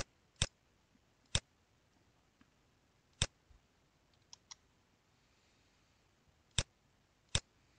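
Computer mouse clicking: about six sharp, unevenly spaced clicks, with a couple of fainter ticks in the middle.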